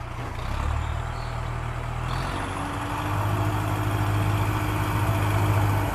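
Heavy vehicle engine idling: a steady low rumble that grows louder about halfway through, with a faint high whine over the second half.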